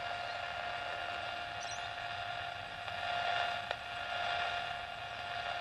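Steady receiver hiss with a steady tone and its overtones running through it, the audio of a radio receiver fed by an RX2 noise bridge. A single click comes about two-thirds of the way in.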